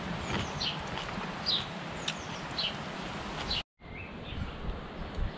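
A bird calling: a short, high, falling note repeated about once a second over steady outdoor background noise. The sound drops out for a moment about two-thirds of the way through, and a single lower chirp follows.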